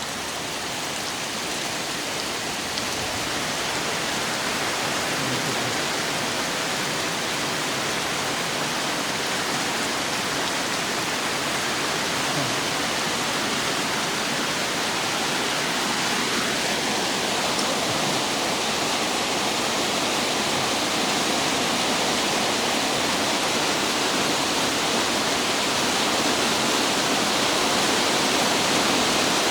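Heavy rain pouring down in a steady hiss that slowly grows louder. About halfway through a faint tone rises and holds for a few seconds under the rain.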